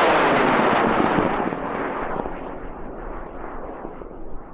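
High-power rocket on an M-class solid motor (M1939) burning on boost as it climbs away: a broad rushing noise, loudest at first, that loses its hiss about a second in and fades steadily as the rocket recedes.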